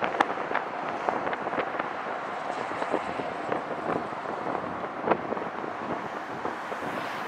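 Road traffic passing close by: a steady rush of car tyre and engine noise, broken by scattered sharp crackles throughout.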